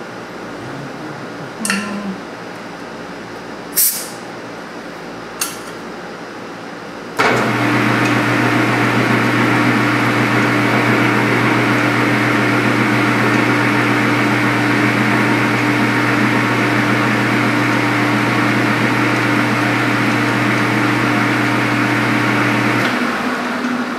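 A few light clicks, then a metal lathe switched on about seven seconds in, running with a steady hum for about fifteen seconds while a reamer is fed into the bore of a bronze workpiece, then switched off near the end.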